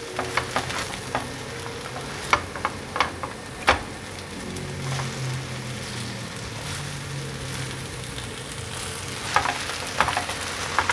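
Shredded taro and pumpkin pancake sizzling as it pan-fries in oil, with a spatula scraping and tapping against the pan a few times as the sections are lifted and flipped.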